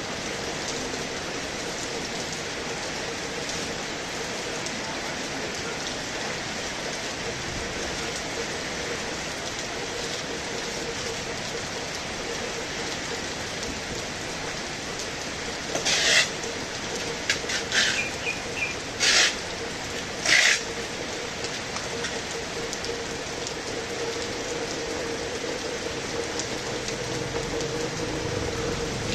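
Heavy rain falling in a steady, even hiss, with a faint steady hum underneath. Partway through, a few short, louder bursts of noise come in quick succession.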